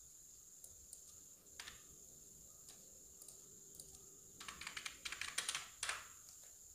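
Computer keyboard typing, faint: a few scattered keystrokes, then a quick run of keys from about four and a half to six seconds in.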